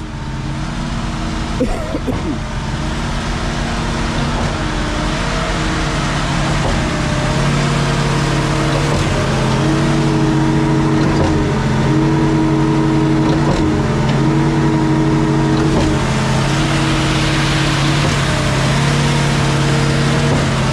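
Ford 7.3-litre Godzilla gasoline V8 driving a Reed B50G concrete pump while it pumps concrete, running easily without labouring. Its note growing louder over the first several seconds, then steady, with a brief dip about every two seconds as the pump pistons change stroke.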